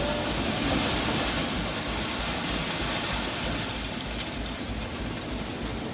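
Swollen river in flood, its water rushing steadily.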